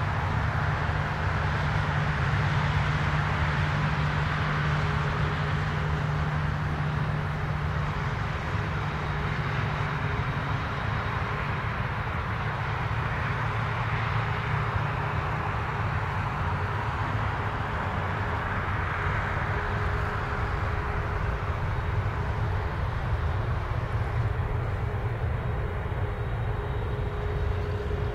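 Boeing 787-9 Dreamliner's twin turbofan engines running, a steady broad jet noise with a strong low rumble and faint steady tones through it. The higher part of the sound slowly fades over the second half.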